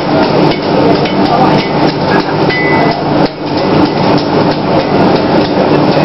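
Blacksmiths' hammers striking hot iron on anvils, several smiths at once, giving irregular overlapping blows several times a second over steady background noise.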